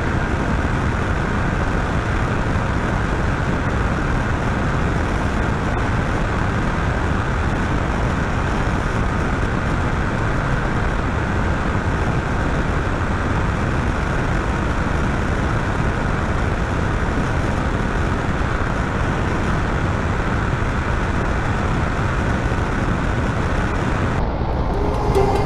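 Steady wind and road roar of a Yamaha Tracer 700 ridden flat out at about 195 km/h in sixth gear, its engine held at top speed. The hiss thins out about a second before the end.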